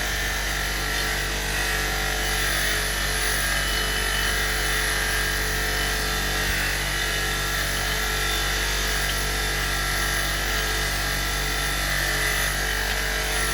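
Small electric motor-driven brush running steadily as it is worked over an object, an even buzzing drone with a low hum beneath.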